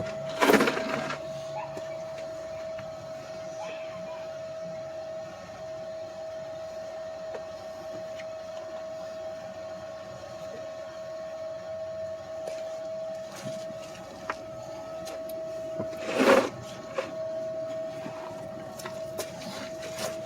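Welding on the steel frame stiffeners of a Jeep ZJ frame: a steady crackle as the bead is run, over a constant hum. Two short louder sounds come about half a second in and near the end.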